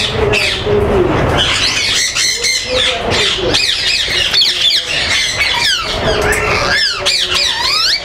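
Captive ringneck parakeets squawking: a busy run of sharp, up-and-down screeches, several birds calling over one another.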